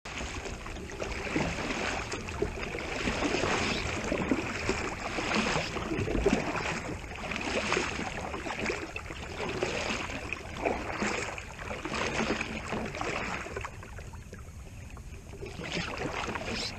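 Double-bladed kayak paddle strokes dipping and splashing in calm water, in an uneven rhythm of swells, easing off briefly near the end.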